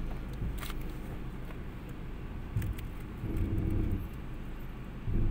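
Steady low rumble of a car's engine and road noise heard from inside the cabin as it creeps along, with a few light clicks and a louder low patch near the end.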